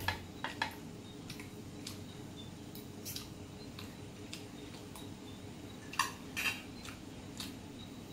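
Spoon and fork clinking and scraping against a shallow metal serving pan as food is scooped up: a handful of separate sharp clinks, the loudest near the start and about six seconds in.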